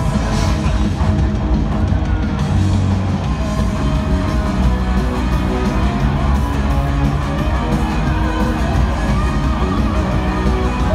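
Live rock band playing over a stadium PA system, heard from the stands, with crowd yells mixed in.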